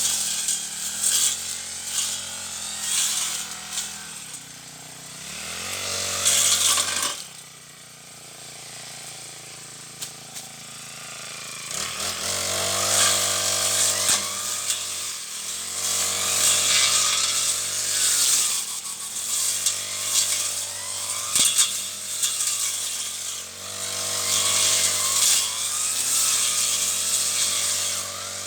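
Brush cutter running while cutting weeds. The engine revs up and down repeatedly and eases back toward idle for a few seconds about a third of the way through.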